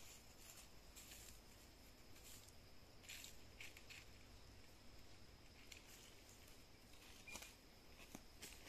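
Faint, scattered crackles of dry leaf litter as a coati roots through it with its snout and paws, over near silence.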